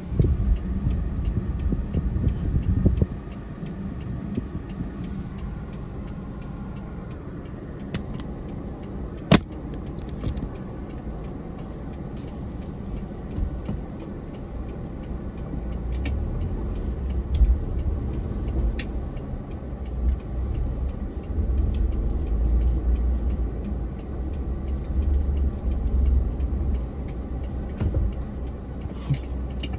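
4x4 vehicle engines running with a low rumble that swells and fades as they drive on the dunes. A single sharp knock comes about nine seconds in.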